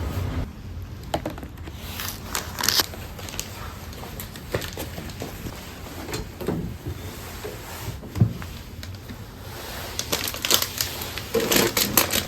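Scattered light clicks, taps and crinkles of small objects being handled, thicker about two seconds in and again near the end.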